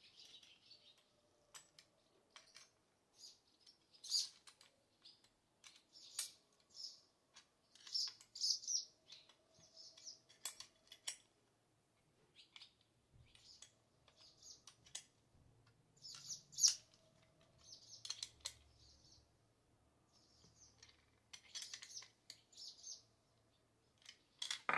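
Small clicks and scrapes of metal screws, nuts and a hand tool as an outer bucking spike is bolted onto a Stihl MS 462 chainsaw's sprocket cover, scattered and irregular, with short high chirps between them.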